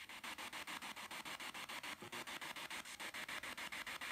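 Spirit box sweeping through radio stations: static hiss chopped into short pulses about eight times a second as the scan steps from channel to channel.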